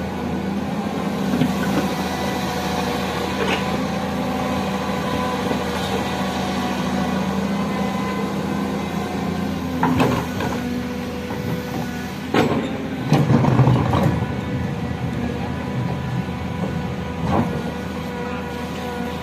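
Excavator engine running steadily, with a few sharp knocks and a louder rattling burst about thirteen seconds in, typical of a bucket load going into a dump truck bed.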